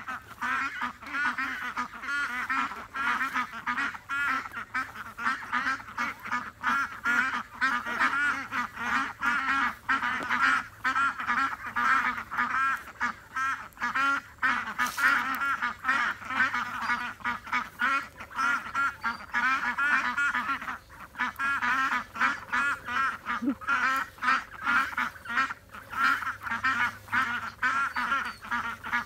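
A flock of Indian Runner ducks quacking constantly, many calls overlapping into a continuous chatter.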